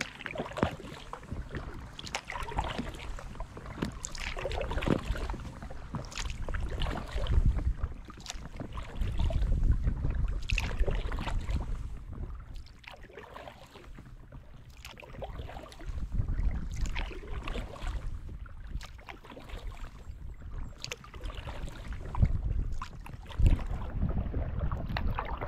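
Kayak paddle strokes splashing and dripping in the water alongside an inflatable kayak, with low wind rumble on the microphone swelling at times.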